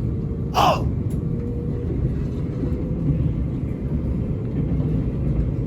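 Nankai Main Line electric train running, a steady low rumble, with a brief sharp sound falling in pitch about half a second in.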